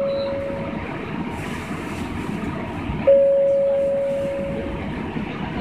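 A single-pitched chime rings every few seconds, struck and fading away over about two seconds: it is already fading at the start and sounds again about three seconds in. Underneath is the steady hum of an Osaka subway 30000-series car standing at a station.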